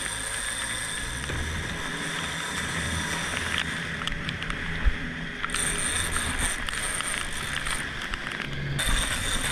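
Boat's outboard motor running under way, with water rushing and splashing along the hull as the boat turns.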